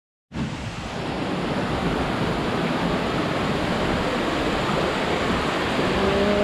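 Steady rushing of a waterfall, an even roar of falling water that starts abruptly about a third of a second in.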